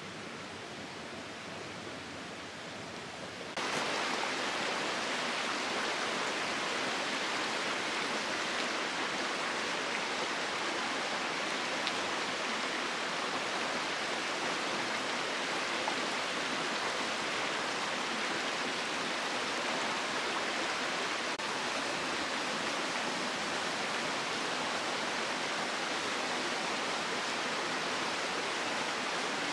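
Mountain stream water rushing over rocks, a steady hiss; it steps up sharply in loudness about three and a half seconds in and stays there.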